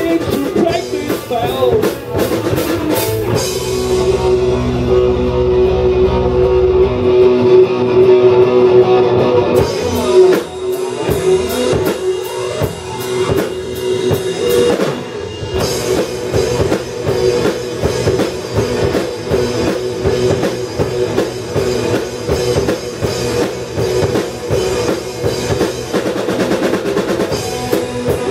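Live rock band of distorted electric guitars, electric bass and a Stagg drum kit playing an instrumental passage with no vocals. The cymbals thin out for a few seconds from about four seconds in, and the full band comes back in about halfway through.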